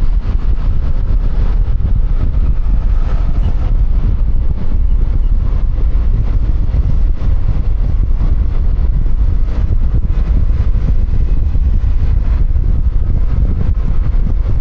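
Steady wind buffeting and rumble on a helmet-mounted external microphone while riding a QJMotor Fortress 160 scooter, with engine and road noise mixed in underneath.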